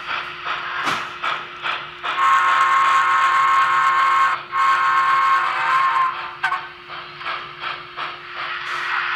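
Onboard Paragon4 sound system of an N scale Reading T-1 steam locomotive model playing recorded steam exhaust chuffs and a steam whistle through its small speaker as the model runs. The whistle blows twice near the middle, the first blast about two seconds long, over a steady hum.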